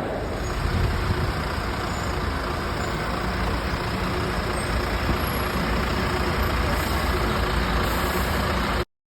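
A city bus's engine and road noise heard from on board, a steady low rumble. It cuts off abruptly near the end.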